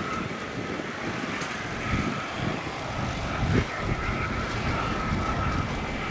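Boeing 737-400's CFM56-3 turbofan engines running with a steady high whine over a low rumble.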